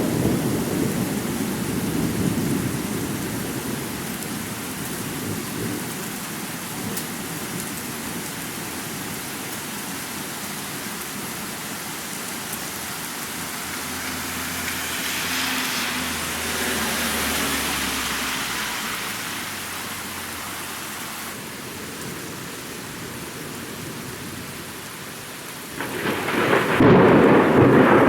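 Thunderstorm with steady rain falling and thunder rumbling: a rumble fades over the first few seconds, another swells and dies away in the middle, and a loud clap of thunder breaks near the end.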